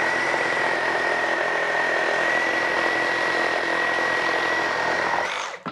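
Milwaukee M18 Super Sawzall cordless reciprocating saw cutting through a 4x6 wooden post with orbital action on, the motor holding a steady high whine over the rasp of the blade. It stops near the end as the cut finishes.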